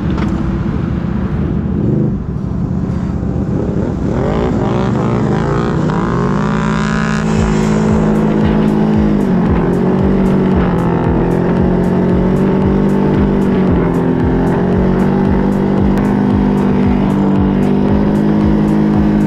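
Tracked ATV engine revving up as the quad accelerates, its pitch climbing a few seconds in, then running at a steady speed.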